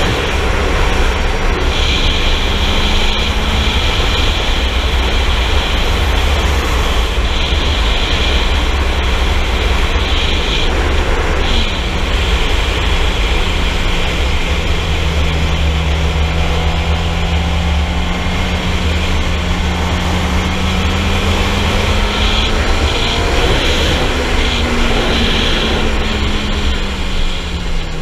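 Motorcycle engine running at road speed under heavy wind rumble on the microphone. Its pitch drifts gently up and down and falls away near the end as the bike slows.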